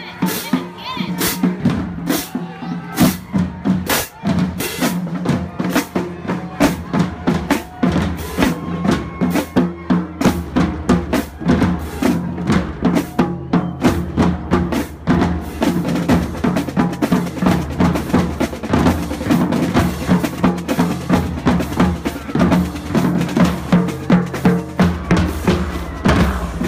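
Marching band drumline playing a driving, steady beat on bass drums and snare drums, with sousaphones holding low notes underneath.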